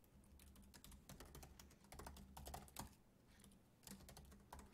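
Faint typing on a computer keyboard: quick, irregular keystroke clicks as code is entered.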